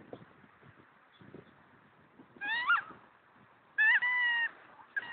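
Rubber squeaky ball squeaking as a Weimaraner chews it: a high squeak that bends in pitch, then a louder, longer, steady squeak, and a short one near the end.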